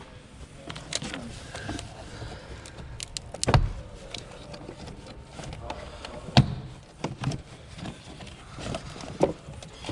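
A cover on the car being worked loose and pulled off by hand: scattered clicks, rattles and knocks, with two sharper knocks about three and a half and six and a half seconds in.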